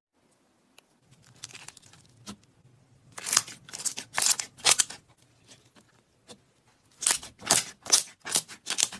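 Slime being worked by hand, making short crisp squelching strokes in two quick runs of about five strokes each, with a few fainter touches before them.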